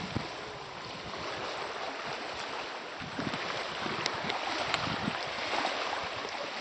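Wind blowing on the microphone, with small waves lapping at a lake shore: a steady rushing noise with a few faint ticks.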